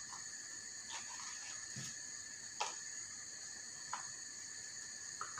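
Faint, scattered light clicks and scrapes of a kitchen knife cutting the core out of a sweet pepper, over a steady high-pitched background whine.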